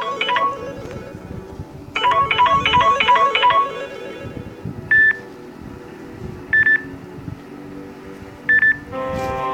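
Samsung Galaxy Note5 alarm tones playing. A quick repeating melody of plucked-sounding notes ends about half a second in and plays again about two seconds in, followed by three short high beeps spaced a second and a half to two seconds apart. A different, more sustained melody starts just before the end.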